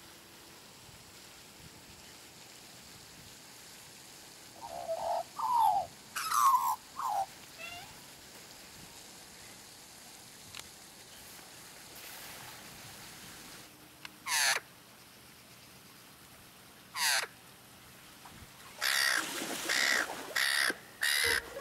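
Australian magpies calling: a short series of gliding, warbling notes about five seconds in, two harsh squawks later on, and a run of rasping calls near the end.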